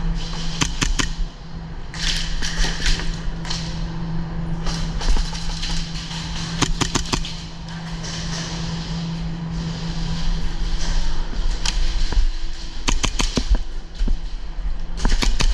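Airsoft guns firing single shots, sharp cracks coming in quick clusters of two to five every few seconds, over a steady low hum.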